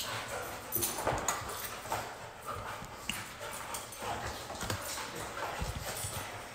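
Puppies playing in a wire exercise pen: scattered light knocks and clicks of paws and bodies on the floor and the pen, with faint dog noises.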